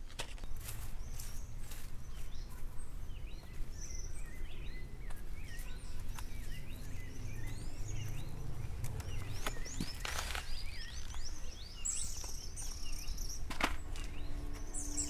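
Small birds chirping again and again over a low steady outdoor background, with a few short sharp rustles or knocks, about ten seconds in and again near the end.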